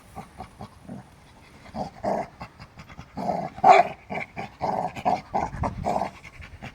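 Dogs play-growling and panting in a rough-and-tumble game, a run of short irregular growls that grows louder about two seconds in. The growling is playful, not a real fight.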